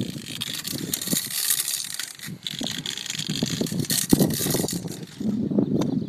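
Upright hand drench pump being worked in strokes, forcing liquid from a bucket through a hose into a calf's mouth: a rushing hiss with irregular knocks.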